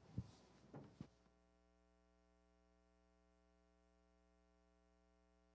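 Near silence: a few faint footsteps or light thuds in the first second, then only a faint steady electrical hum.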